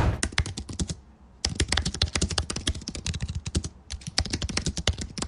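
Typing on a computer keyboard: a quick, uneven run of key clicks that stops for a moment about a second in and pauses again briefly a little past the middle.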